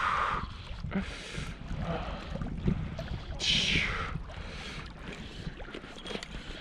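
Wind buffeting the microphone as a steady low rumble, with a few short rushing whooshes over it, the loudest about three and a half seconds in, falling in pitch.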